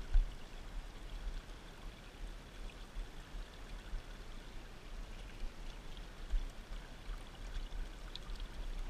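Shallow creek water trickling and running over rocks in a steady wash, with low rumbling bumps throughout and one sharp thump just after the start.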